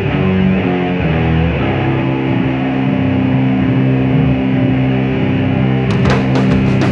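Live heavy rock band: distorted electric guitar and bass hold long ringing chords, with drums and cymbals crashing in near the end.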